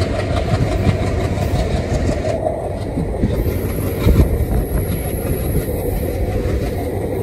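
Indian Railways passenger coach running at speed, heard from its open doorway: a steady rumble of wheels on the rails, with a louder knock about four seconds in.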